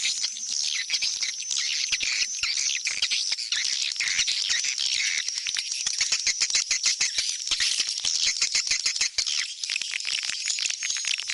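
Swiftlets twittering: a dense, continuous chatter of high chirps mixed with rapid clicking.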